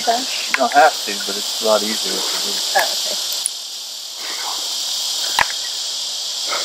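Steady high-pitched chorus of insects in the field, with quiet voices over the first three seconds and one sharp crack about five seconds in.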